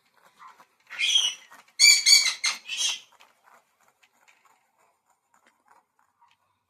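Bird chirping: a short high call about a second in, then a quick run of sharp, repeated chirps, after which only faint scattered sounds remain.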